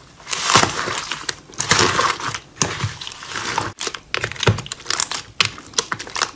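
Slime being handled, making irregular crackling and popping sounds.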